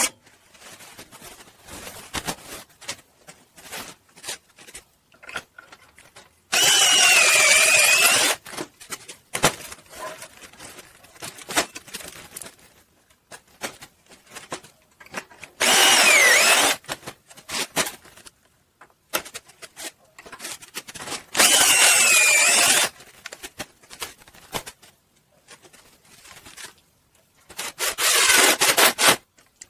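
Power drill running in four short bursts of one to two seconds, its motor whine sagging in pitch under load as it bores pocket holes through a pocket-hole jig and drives screws into a board. Small clicks and handling knocks come between the bursts.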